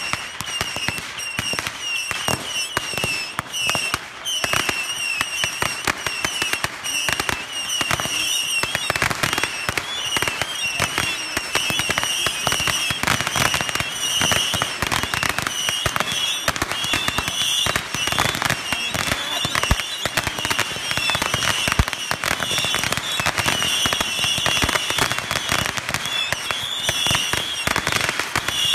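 Fireworks and firecrackers crackling and popping in a dense, rapid, continuous string. A high chirping repeats steadily through it.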